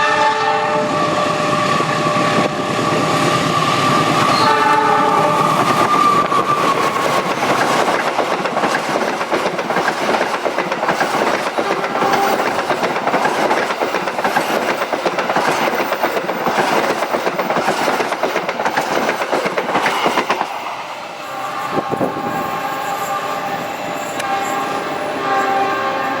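Train passing: its horn sounds in the first several seconds, then the wheels rattle steadily over the rail joints for a long stretch as the cars go by. Tonal sounds return in the last few seconds.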